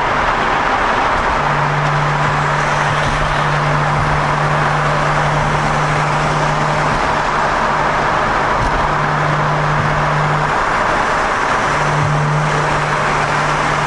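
BMW 335i (N54 twin-turbo straight-six) with an Eisenmann race exhaust cruising at steady speed, heard from inside the cabin. Steady road and engine noise carries a low, even exhaust drone that drops out briefly a few times, with no revving.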